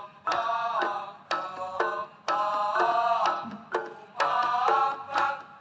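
Background music: a melody in bending, sliding tones over sharp, hand-drum-like percussion strikes.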